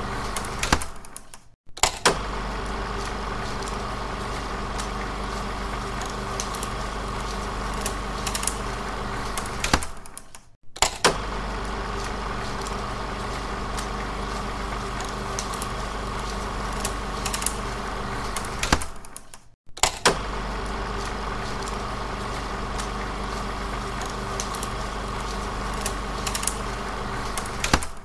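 16mm film projector running, a steady whirring clatter with a low hum. It fades out and drops to silence briefly about every nine seconds, then starts again with a sharp click, as the recorded effect loops.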